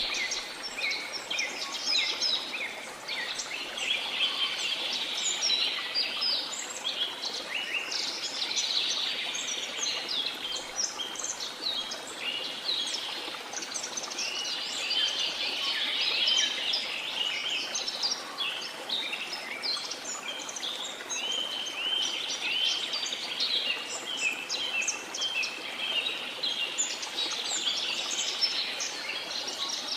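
A flock of small songbirds chirping and twittering without a break, many short rapid calls overlapping, over a steady wash of sea noise.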